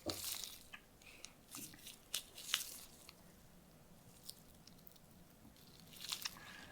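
Quiet, scattered crisp crunching and crinkling noises with a few sharp clicks, typical of food being handled and prepared.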